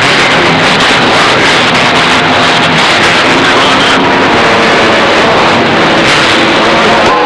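Loud, steady rushing noise of an open radio channel, with faint held tones underneath.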